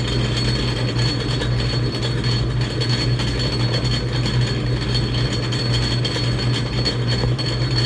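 Atlas metal lathe running steadily at its lowest spindle speed with the power feed engaged and driving the carriage: a steady mechanical hum with a thin, high, steady whine above it.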